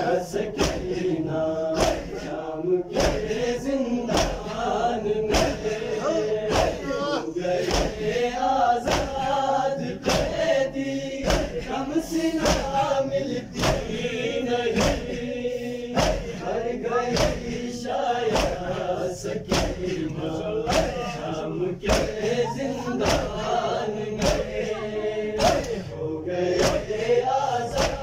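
Crowd of men chanting a mourning lament in unison, keeping time with rhythmic chest-beating (matam): a sharp slap about every two-thirds of a second under the massed voices.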